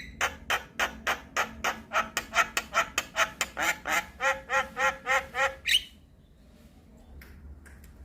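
Javan myna (jalak kebo) calling in a fast, even run of harsh repeated notes, about four or five a second. The run ends with one higher, rising note about six seconds in, after which only a faint background remains.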